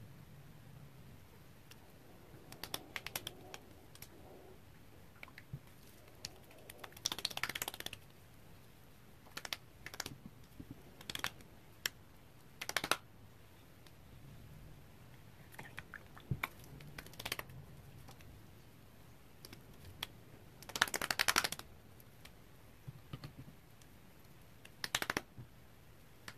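Hands patting toner into facial skin: short flurries of quick, light slaps and taps, several times with pauses between.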